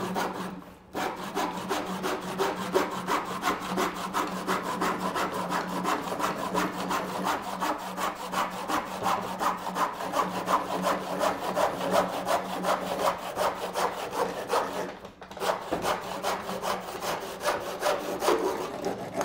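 Hand backsaw cutting through two wooden boards held together, in quick, even back-and-forth strokes, with a short pause about a second in and another around fifteen seconds in.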